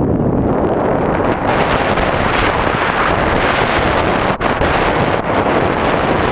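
Wind buffeting the microphone: a loud, steady rush that gets stronger and brighter about a second and a half in, with a brief break near the middle.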